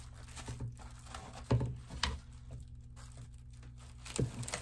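Plastic cling wrap crinkling as it is spread over a metal baking pan of rolled dough, with a few short, sharper crackles of handling.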